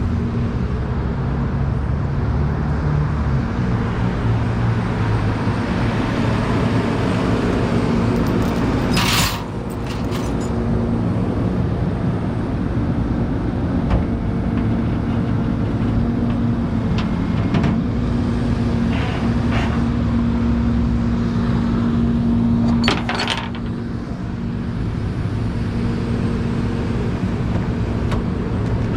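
Motor vehicle running steadily, with engine hum and road noise. Two brief sharp clicks come about nine seconds in and again near twenty-three seconds, each followed by a slight drop in loudness.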